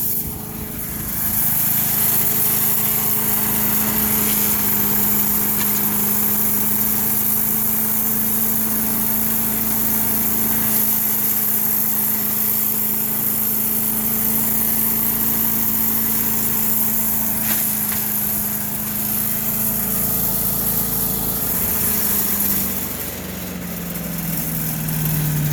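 Small engine of a Craftsman 4 HP wood chipper/shredder running steadily, its speed dropping a little about 20 seconds in and again, lower, about 23 seconds in.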